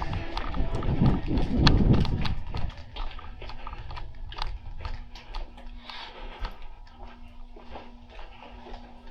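Rapid, irregular clicks and knocks over loud rumbling movement noise for the first two and a half seconds, then sparser, quieter clicks over a faint steady hum.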